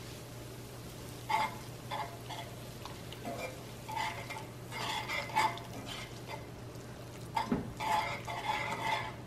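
Wire whisk scraping and clattering in irregular bursts around a nonstick skillet, whisking a flour roux with softened onion and celery as heavy cream is poured in, with a low sizzle from the pan. This is the stage where the cream is whisked in a little at a time so the gravy sets without lumps.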